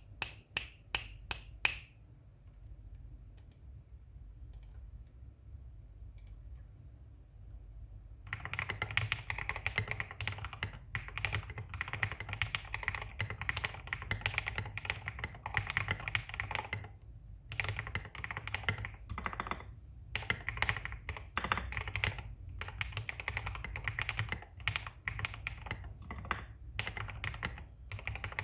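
GMMK Pro mechanical keyboard with an aluminium plate, lubed KTT Red Wine linear switches and SA-profile keycaps, being typed on. A few scattered keystrokes come first, then steady fast typing starts about eight seconds in, broken by short pauses.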